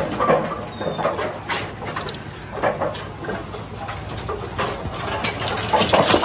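Brunswick A-2 bowling pinsetter running through its cycle as the setting deck lowers and spots a rack of pins: a steady mechanical running sound with irregular clanks and knocks of metal and pins, louder near the end.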